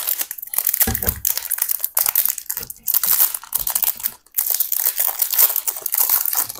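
Food wrapping crinkling and crackling as it is handled close to the microphone, in several stretches with short pauses between them.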